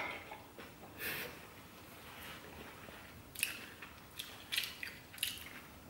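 Close-miked chewing of a mouthful of glass noodles and vegetables: a sharp mouth click at the start, then soft, wet mouth sounds, most of them in the second half.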